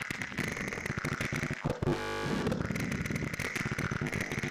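Harsh, crackling electronic noise music from a laser and guitar-string instrument played by hand in the laser beams, with a brief buzzing tone about two seconds in.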